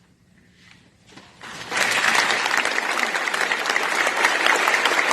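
Audience applause: after a second and a half of near quiet, many people start clapping at once, and the applause swells quickly to a dense, steady clatter.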